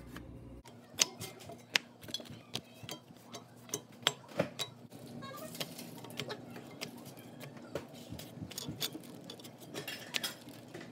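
Scattered light taps and clicks as corn tortillas are lifted off, flipped and laid back down on a cast-iron comal.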